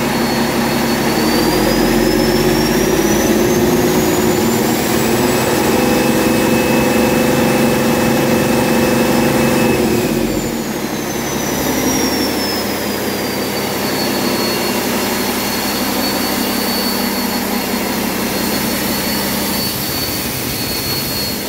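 2018 Cummins X15 inline-six diesel engine running on a test stand. About a second and a half in it revs up and holds there with a high whine that climbs and stays up. About ten seconds in it drops back to a steady idle, the whine falling away over the next few seconds.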